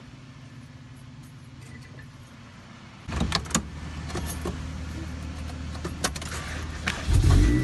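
Acura Integra's four-cylinder engine idling, with keys jangling and clicks from about three seconds in, when the engine gets louder. Near the end the engine rises sharply as it is revved.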